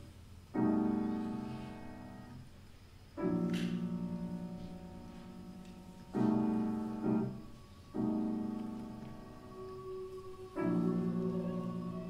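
Five slow chords on a keyboard instrument, each struck and then left to ring and die away, with a slight wavering shimmer in the sustain.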